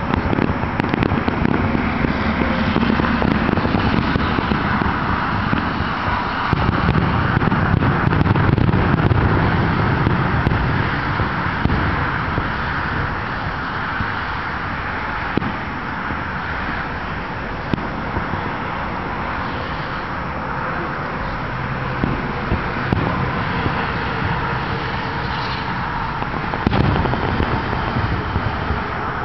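Fireworks display: aerial shells bursting in a near-continuous run of booms and crackles, with heavier low booms about a quarter of the way in and again near the end.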